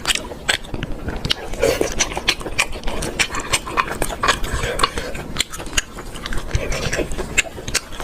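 Close-up eating of shellfish: many irregular clicks and crackles as shells are handled, cracked and picked apart, with soft mouth sounds between.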